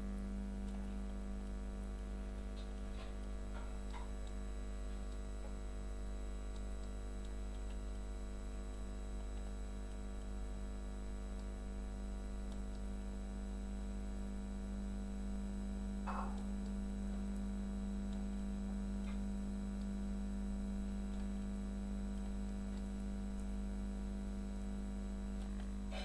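Steady electrical hum with a buzzy stack of even overtones, strongest around 200 Hz, and a faint brief sound about 16 seconds in.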